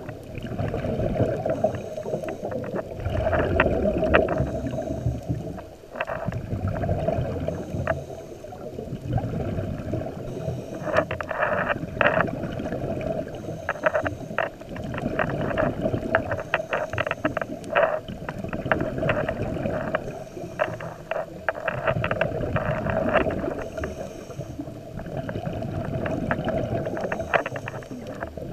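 Scuba diver's breathing through a regulator, heard underwater: the rush of each breath and the gurgling rumble of exhaled bubbles swelling and fading every few seconds, with scattered sharp crackling clicks throughout.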